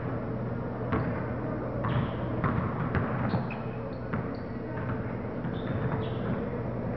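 Basketball bouncing on a hardwood gym floor, a few irregular thuds, with short high sneaker squeaks from players cutting on the court, echoing in a large gymnasium.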